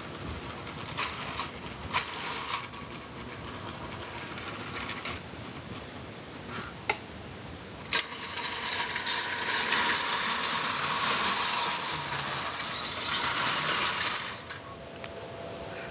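A few sharp clicks, then about eight seconds in a vintage Marx electric O-gauge toy train's motor and wheels start running on metal track with a steady mechanical clatter for about six seconds, cutting off suddenly near the end.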